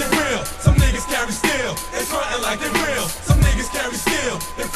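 Hip hop track playing: a beat with deep kick drum hits a couple of seconds apart, with a voice over it.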